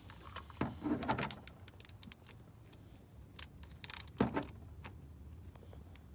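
Metal clinks and rattles of a wrench being worked on the oil filter housing, in two short clusters, about a second in and again around four seconds.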